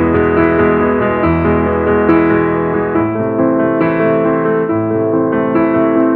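Background music played on piano: a gentle melody of sustained chords that change about once a second.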